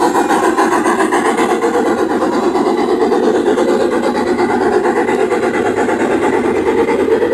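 Garden-scale model freight train rolling past on its track, a steady rumble of wheels and cars.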